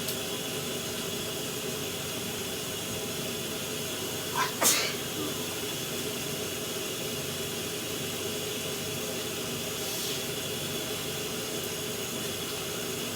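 Shower spray running steadily, with one sharp sneeze about four and a half seconds in.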